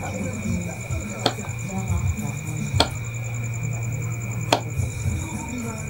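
Three sharp taps, about a second and a half apart, from hand work on a wooden mask while hair is being fixed into it, over a steady high cricket trill and a low hum.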